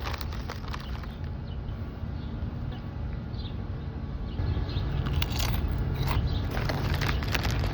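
Crisp crunching of potato chips being bitten and chewed, the crunches coming thick and fast in the second half, over a low steady hum.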